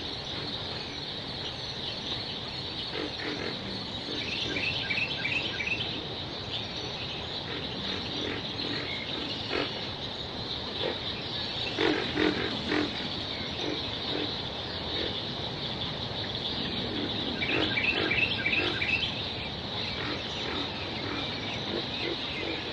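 Night chorus of crickets and frogs: a steady high insect trill, with bursts of rapid chirping and repeated low croaking calls.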